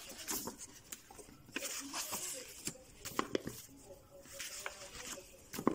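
Pages of a picture book being opened and turned by hand: paper swishing and rustling in several strokes, with a few light taps of handling, the sharpest near the end.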